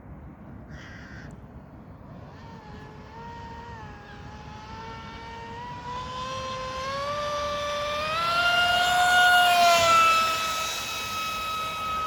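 High-revving brushless electric motor and propeller of an RC speedboat (TP 4050 2310kv on 6S) whining, climbing steadily in pitch and getting louder as it speeds up and closes in. About two-thirds of the way through it is at its loudest, then the pitch drops a little as it goes past.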